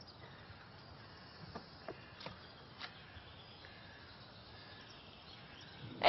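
Faint woodland ambience: a low steady background hiss with a few scattered short chirps and ticks.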